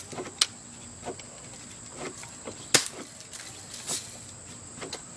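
BB gun shots: a few sharp snaps, the loudest a little under three seconds in, over a steady high-pitched drone.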